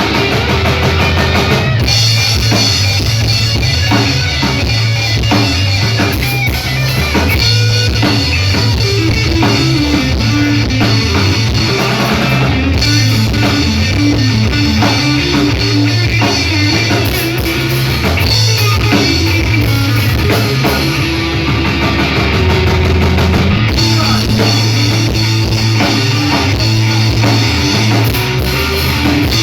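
Rock band playing live, with electric guitar and drum kit at a loud, even level.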